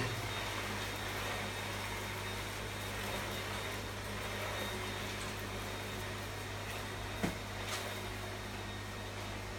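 Dibea C17 cordless stick vacuum cleaner running steadily. There is a brief knock about seven seconds in.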